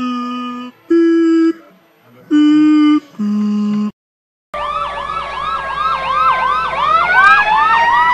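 Four steady electronic alert tones, each under a second long and each at a different pitch: a fire-dispatch alerting sequence. After a short gap, fire truck sirens start up, a fast yelp over a slowly rising wail.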